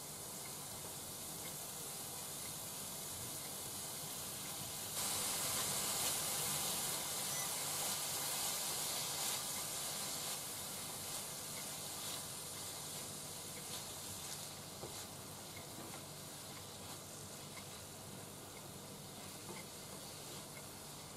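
Cabbage and shimeji mushrooms sizzling as they stir-fry in a frying pan, turned with chopsticks. The sizzle gets suddenly louder about five seconds in, then slowly dies down.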